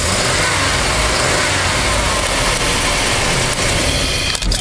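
A 1993 GMC Safari's 4.3-litre throttle-body-injected V6 running just after starting, heard close up with the engine cover off. The noise is loud and steady, then drops suddenly about four seconds in. The engine starts and runs on the newly fitted throttle position sensor.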